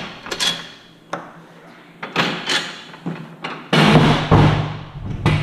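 Plastic-topped folding table with a metal frame being handled and set up: a string of knocks and clatters, the loudest and longest about four seconds in.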